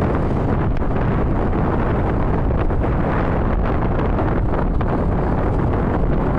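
Wind rushing over the microphone of a camera on a moving motorcycle: a loud, steady roar, with road and traffic noise underneath.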